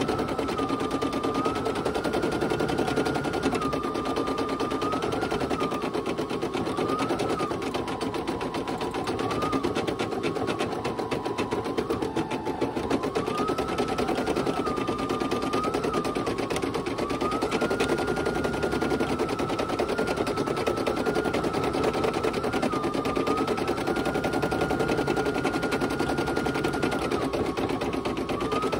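Brother PE800 embroidery machine stitching a design: a steady, rapid clatter of the needle with a motor whine that steps up and down in pitch every second or two.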